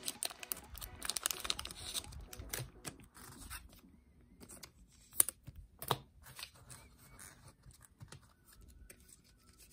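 Thin plastic trading-card sleeves crinkling and rustling as they are handled, busiest in the first two seconds. Then scattered light taps and clicks of cards being handled on the table, with two sharper clicks about five and six seconds in.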